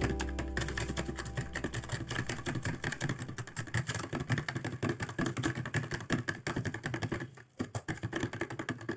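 Rapid, irregular clicking, with a low hum fading out over the first few seconds and a brief drop almost to silence about seven and a half seconds in.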